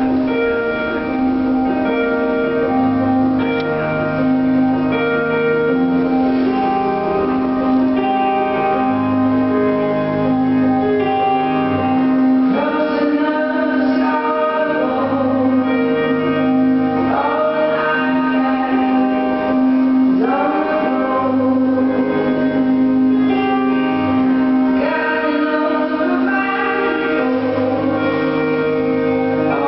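Free dance program music playing steadily, with long held notes and a singing voice in places.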